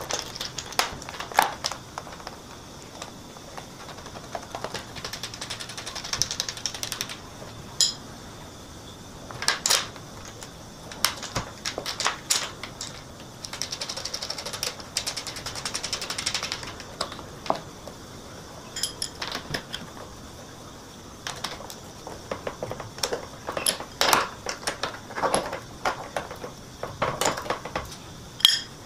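Irregular clicks and taps of small metal bolts and washers being set and handled on a car's front splitter, with a few brief stretches of rustling.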